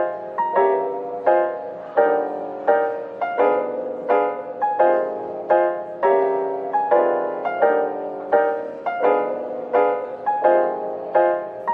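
Background piano music: a gentle melody of evenly spaced notes, each struck and fading, at about one and a half notes a second.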